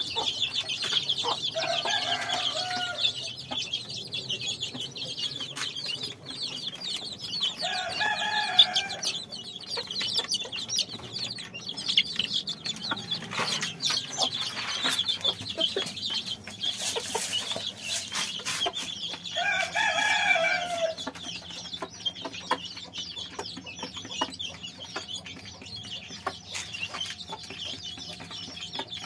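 A flock of desi (country) chicks, about six weeks old, peeping continuously in a dense, high chatter, with a rooster crowing three times, near the start, about eight seconds in and about twenty seconds in.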